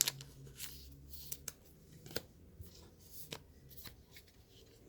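Baseball trading cards being handled and flipped through in a pack: card stock sliding and tapping against card, with a few soft clicks spread unevenly.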